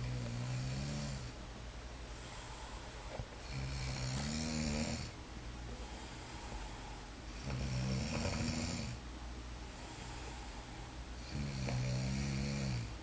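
A sleeping person snoring: four snores about four seconds apart, each lasting about a second and a half, over a steady low hum.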